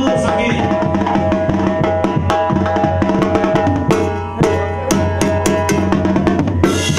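A Mexican banda brass band playing: tuba, trombones and clarinet hold sustained chords over a drummer's snare drums and cymbals and a tambora bass drum. Sharp snare strikes come thick from about four seconds in, and the sound turns brighter and fuller near the end.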